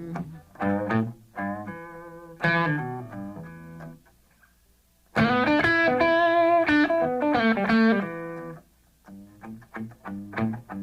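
Background song in an instrumental guitar break with no singing. It plays short plucked phrases, pauses briefly about four seconds in, plays a louder sustained passage from about five seconds, and ends with a few sparse notes.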